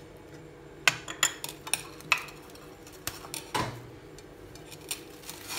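Plastic cling wrap being peeled off a plate, crinkling and crackling in irregular sharp snaps.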